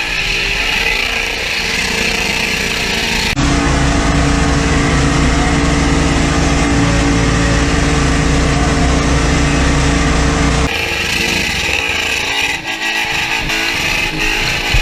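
A car engine running loud and steady over guitar music, in hard-cut segments: the sound switches abruptly to a louder, steadier engine passage about three seconds in and cuts back about eleven seconds in.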